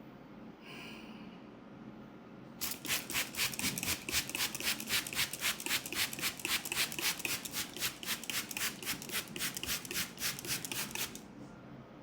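Hands rubbing briskly back and forth in a fast, even rhythm of about four to five strokes a second, as in an ASMR head massage. It starts a couple of seconds in and stops abruptly about a second before the end.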